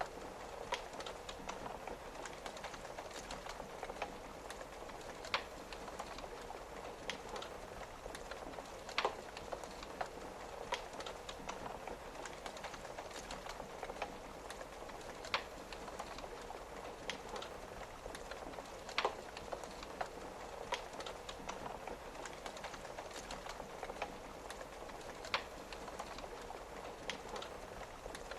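Wood fire crackling, with sharp pops every second or two over a steady hiss of rain on a window.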